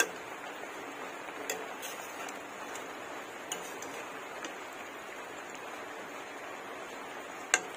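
Metal spatula knocking against the side of a metal cooking pot in a few sharp clicks, the loudest near the end, over a steady hiss from the simmering fish curry.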